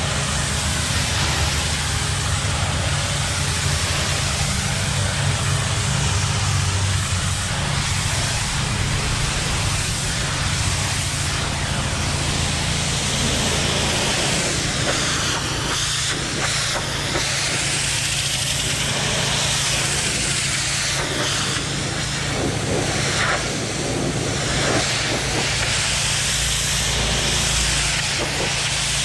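Pressure washer blasting a high-pressure water jet against a brick wall: a steady, loud spray hiss over the machine's low, even hum. From about halfway, the hiss wavers in pitch as the jet is swept along the wall.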